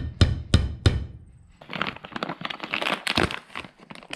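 A few sharp knocks of parts being set down on a workbench, then about two seconds of crinkling from plastic packaging being handled, followed by a few small clicks.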